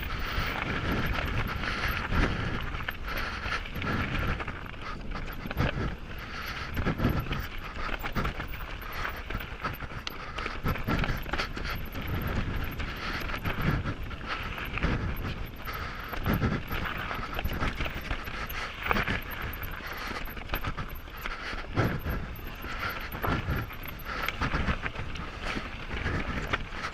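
Canyon Sender downhill mountain bike rattling and clattering over a rough trail at speed: tyres on rock and gravel, with chain and frame knocking. The rider's breath puffs in low thumps every second or two on a microphone right in front of his mouth.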